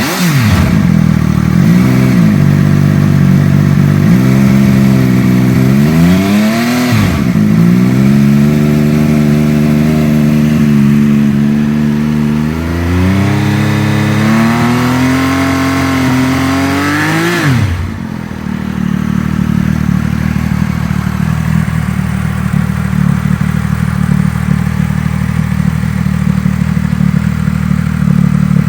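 Triumph Speed Triple 1200 RS's three-cylinder engine through an aftermarket MV Agusta exhaust, revved in short blips, then held at raised revs that climb for several seconds. The revs drop sharply and the engine settles to a steady idle for the last ten seconds or so.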